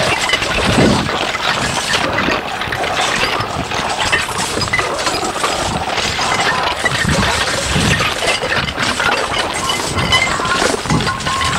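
Experimental noise and musique concrète track: a dense, continuous texture of crackling, clattering and clinking, with a few heavier low thuds rising through it.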